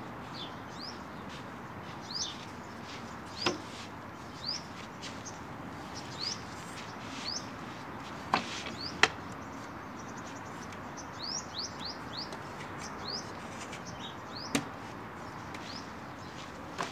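Small birds chirping, many short upward-sliding chirps repeated throughout. A few sharp wooden knocks cut in, the loudest two close together about halfway through, as a wooden folding chair is lifted and handled.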